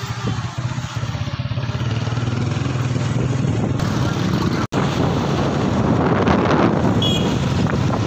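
Motorcycle engine running steadily with road noise while riding. The sound drops out for an instant a little past halfway, and the rushing noise is a little louder after it.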